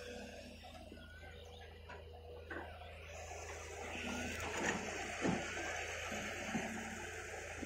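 Faint, steady low hum of an excavator's diesel engine working across the water, with a few short bird chirps over it.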